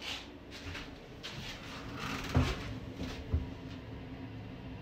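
Shower-room door being opened: a run of short rattling swishes, then two dull thumps about a second apart, over a steady low hum.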